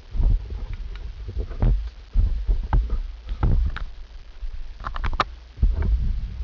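Low rumbling handling noise close to the microphone, with scattered clicks and taps of small seatbelt-retractor parts being handled and fitted, a sharp pair of clicks about five seconds in.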